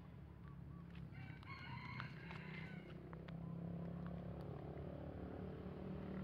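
A rooster crows once, starting about a second in and lasting about two seconds, over a steady low engine hum that grows louder in the second half.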